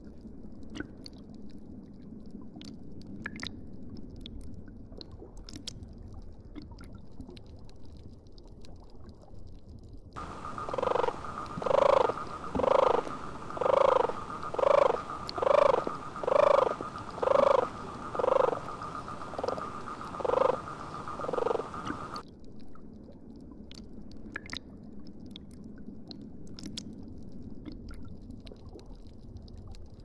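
Faint underwater ambience with scattered clicks. In the middle, a dubbed-in animal call repeats about a dozen times, roughly once a second, over a steady hum, the last few calls weaker, then stops abruptly.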